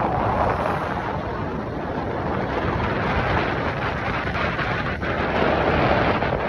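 Wind rushing over the microphone from a moving vehicle, a steady loud rush of noise with road and vehicle noise beneath it.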